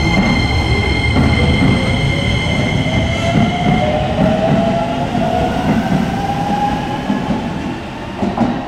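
Electric commuter train running past at close range with a steady rumble of wheels on rail. Its traction motors whine in a tone that rises in pitch over several seconds as the train accelerates.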